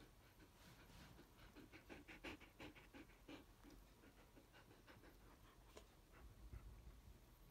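Alaskan malamute panting faintly, a run of quick breaths about four a second, strongest from about one and a half to three and a half seconds in.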